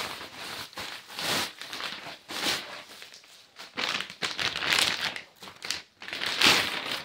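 Plastic packaging, bubble wrap and a clear plastic bag, crinkling and rustling in several bursts as it is handled, the loudest burst near the end.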